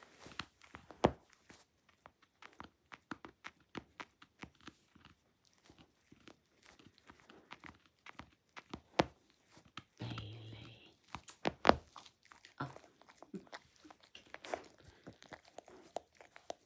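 A dachshund chewing and tearing at a plush toy: irregular crunching bites and fabric tearing, with the sharpest snaps about a second in, at about nine seconds and near twelve seconds.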